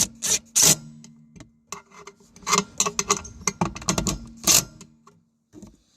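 Metal clicking as a 10 mm wrench works the nuts and bolts holding a toolbox: a run of sharp clicks in the first second, then a scattered flurry of clicks and knocks from about one and a half to four and a half seconds in.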